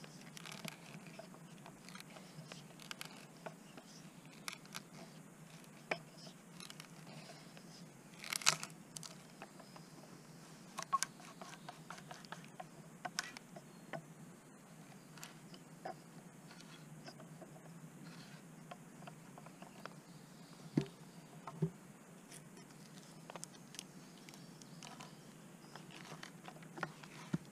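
Faint, scattered crunches and scrapes of digging a hole in woodland soil to set a shelter post, with a few sharper knocks about 8 and 13 seconds in and two more near 21 seconds.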